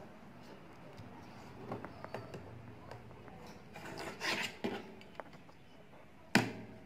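Cardstock being handled on a cutting mat: faint rubbing and scraping strokes, with a few light clicks, and one sharp tap near the end.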